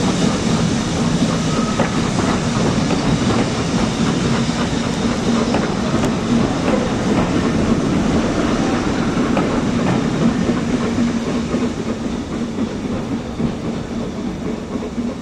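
BR Mark 1 passenger coaches rolling past on the rails, wheels clicking over the rail joints in a steady clickety-clack with a low rumble, growing quieter near the end as the last coach goes by.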